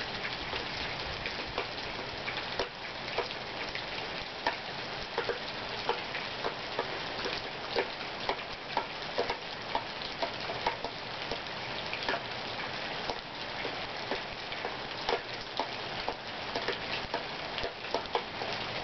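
Steady rain falling, with irregular drips tapping several times a second. No thunder is heard.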